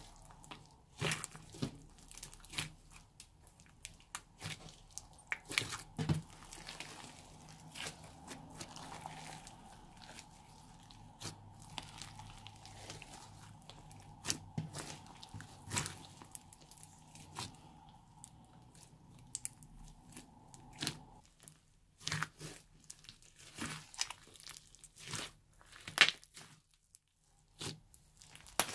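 Hands kneading, squeezing and stretching a large batch of glossy slime mixed with small foam beads: irregular sticky crackles, clicks and pops.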